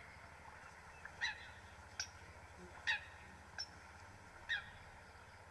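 A waterbird calling: five short calls, roughly a second apart.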